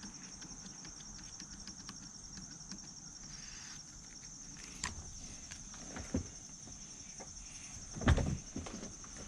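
Insects chirping in a steady high trill, with a few soft knocks and one louder thump about eight seconds in.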